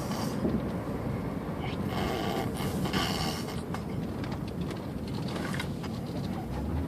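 A baby blowing raspberries, buzzing her lips to make fart-like noises, with brief brighter bursts about two and three seconds in.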